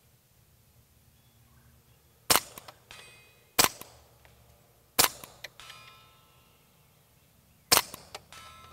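Four single shots from a Ruger 22 Charger, a semi-automatic .22 LR pistol, fired at an uneven pace about one to three seconds apart.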